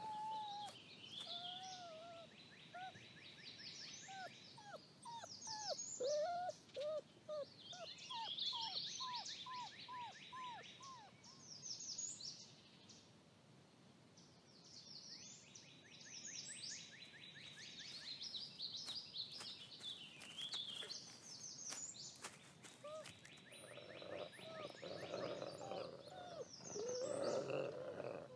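Wild songbirds singing throughout, with repeated trills and chirps and runs of short falling whistles. Near the end an adult Mexican gray wolf growls at his pups.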